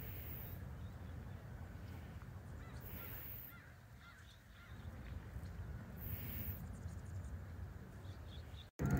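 A bird calls three times, about three seconds apart, over a steady low rumble, with a few faint small chirps near the end.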